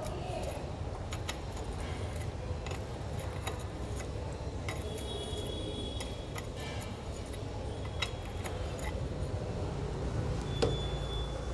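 Metal spanner clicking and clinking on the screws of a Royal Enfield Standard 350's engine case cover as they are worked loose, in scattered light ticks over a steady low hum.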